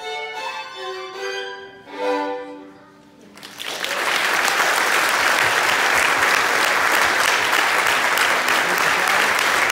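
Two violins play the closing notes of a duet, ending on a final held note about two seconds in. After a brief pause, an audience breaks into applause that carries on steadily and is the loudest part.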